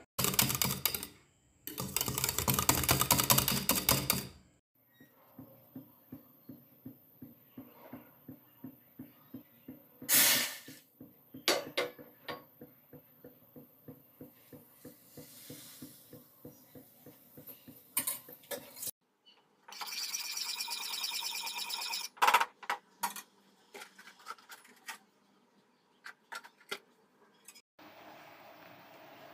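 Electric mixer grinder running in two short bursts, grinding soaked fenugreek seeds with their soaking water into batter. Then a long run of regular light clicks and taps, about two a second, and scattered clatter of a metal pan and utensils.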